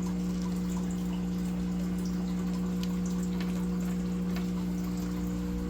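Steady low electric hum, like a running pump, with a faint trickle of water and a few light clicks.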